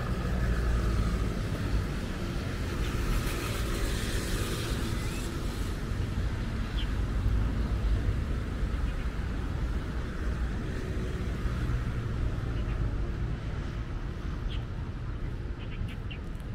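Road traffic: a steady low rumble of vehicles, with one passing more audibly about three to five seconds in.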